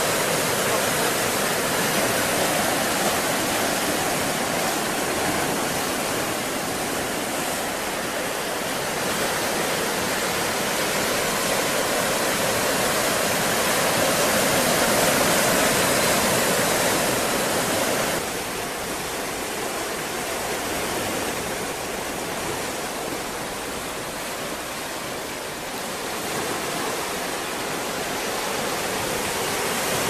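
Atlantic Ocean surf: a steady rushing wash of waves that slowly swells and eases, dropping a little in level suddenly about eighteen seconds in.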